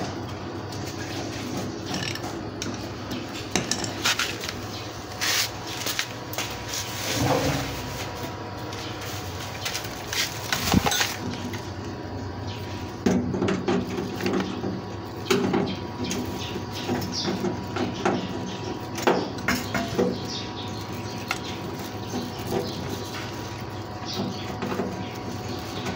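National washing machine motor humming steadily without turning, with intermittent clattering knocks. The owner traces the hum to a burst, burnt-out motor capacitor.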